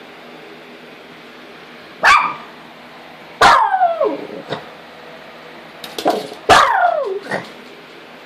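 Small dogs at play yelping and barking: a quiet start, then a handful of sharp, high-pitched yelps, two of them long and sliding down in pitch.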